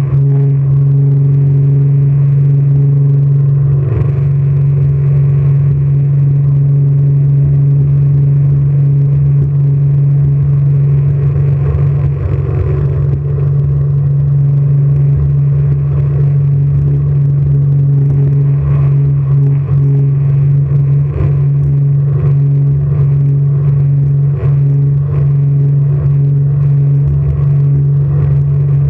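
Jet boat engine running steadily at speed, a loud, muffled, unbroken low drone. Irregular short knocks come through it, mostly in the second half.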